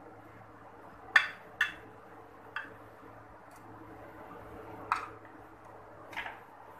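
Steel ladle tapping against a wok and a glass baking dish while thick custard is ladled out: about five short, sharp clicks at uneven intervals over a faint steady hum.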